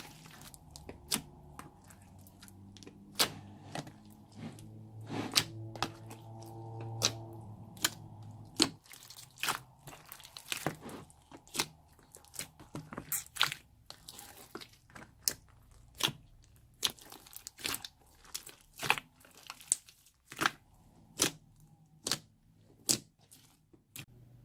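Slime being kneaded and squeezed, giving irregular sharp pops and crackles, about one or two a second, as air pockets burst in the mixed old slime.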